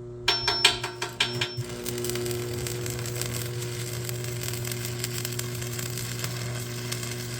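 Electric arc welder striking an arc with a few sputtering pops, then laying a bead with a steady crackle for about six seconds, over a low steady hum, while putting an extra weld on a broken skid steer grapple jaw.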